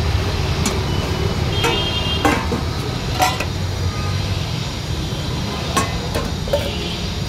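Street traffic running with a steady low rumble, a vehicle horn tooting briefly about two seconds in. A few sharp clinks of a serving spoon against steel food pots.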